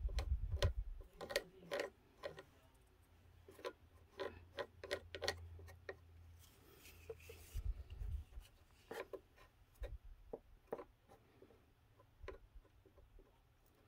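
Wooden craft stick dabbing and pressing glue-soaked toilet paper onto a dollhouse porch edge: irregular small taps and clicks, with a few dull thumps near the start and about eight seconds in.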